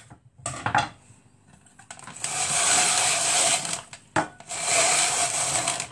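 A small electric kitchen chopper running in two bursts of about a second and a half each, the first a couple of seconds in and the second near the end, with a steady whirr through each.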